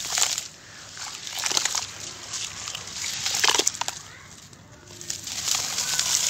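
Dry, gritty charcoal crumbles squeezed apart by hand and showering into a shallow dish of water, crackling and pattering on the surface in repeated bursts. The loudest bursts come about three and a half seconds in and near the end.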